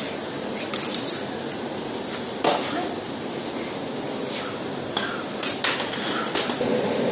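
Plastic toys being handled: irregular light clicks and clatters over a steady background hiss.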